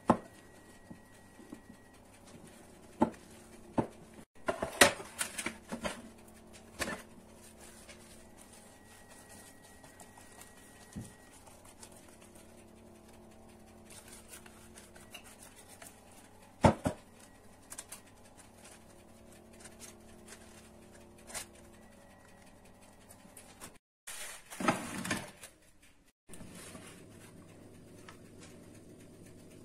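Kitchen handling sounds: a silicone spatula scraping and tapping against a glass bowl while batter is mixed and poured, giving scattered sharp knocks over a faint steady hum. The sound cuts out briefly a few times.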